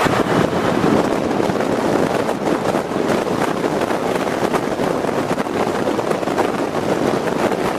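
A moving vehicle's steady rush of wind and road noise, with wind buffeting the microphone.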